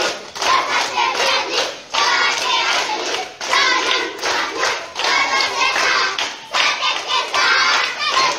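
A group of children chanting together in rhythm while clapping, in repeated phrases about a second and a half long with short breaks between them.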